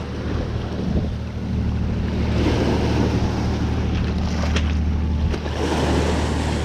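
Small waves washing over a pebble shore, swelling twice, over the steady low drone of a moored ferry's engines.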